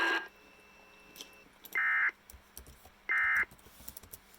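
Emergency Alert System end-of-message data bursts: two short, shrill digital chirps about a second and a half apart, the coded 'NNNN' signal that closes an EAS weather-radio alert.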